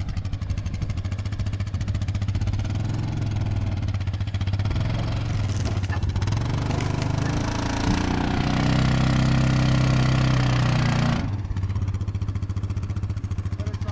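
Side-by-side UTV engine running as the machine pulls out old fence. About eight seconds in the revs climb and the engine grows louder under the load, then the revs drop back suddenly about three seconds later.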